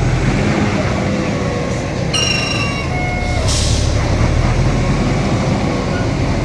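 A heavy vehicle's engine running with a steady low rumble. A short high squeal sounds a little over two seconds in, and a brief hiss about a second later.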